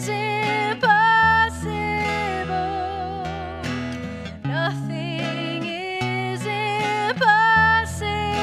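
Worship music led by acoustic guitar, with sustained bass notes under a wavering melody line.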